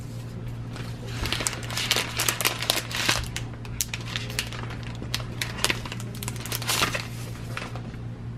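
Protective plastic wrap being peeled off a new tablet, crinkling and crackling in quick bursts.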